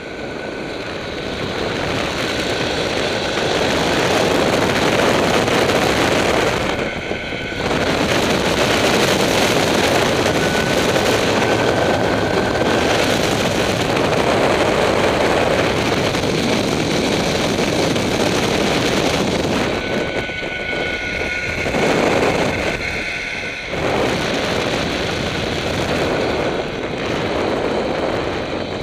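Steady rush of wind over the microphone during a fast zipline descent, mixed with the trolley's pulleys running along the steel cable. The noise dips briefly about seven seconds in and again near twenty-three seconds.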